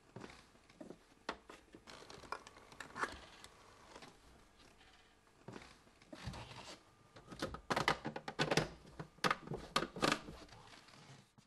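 Handling noise of plastic and metal cabinet fittings being worked by hand: scattered clicks, scrapes and rustles, with a quick run of sharper clicks in the last few seconds.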